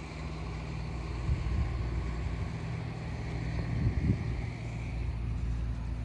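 A steady low engine hum, with a few brief low rumbles over it.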